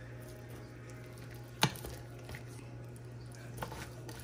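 Metal spoon scooping and cutting through baked buffalo chicken dip in a foil-lined pan: soft squishing, with one sharp click of the spoon against the pan about a second and a half in, over a steady low hum.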